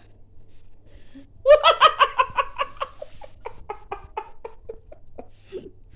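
Hearty laughter: a loud string of quick 'ha-ha' pulses starting about a second and a half in, then slowing and fading over about four seconds.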